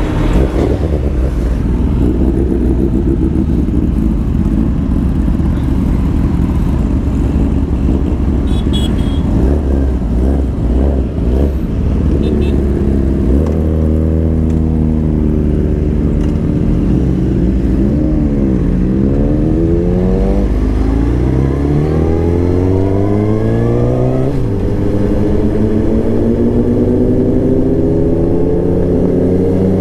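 Suzuki GSX-R inline-four sportbike engine heard from the rider's seat under wind rush. The engine note sinks as the bike slows, then rises as it accelerates through the gears, dropping in pitch at a gear change about two-thirds of the way through before climbing again.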